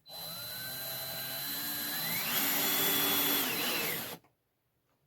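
Power drill driving a screw into wood, running for about four seconds. Its pitch rises about two seconds in and drops near the end, then it stops abruptly.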